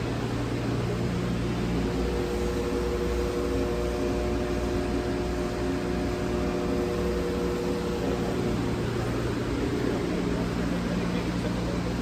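Hydraulic pump of a Cincinnati 220-8 centerless grinder running steadily with a low hum. A higher whine joins in about two seconds in and fades out around eight or nine seconds in.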